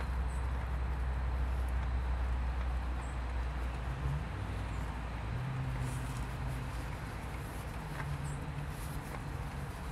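A steady low mechanical hum that shifts to a somewhat higher, quieter drone about halfway through.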